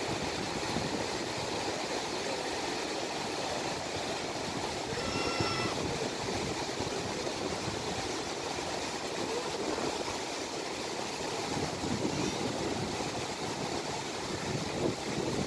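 Steady wash of sea surf and wind on the microphone, with a brief high-pitched tone about five seconds in.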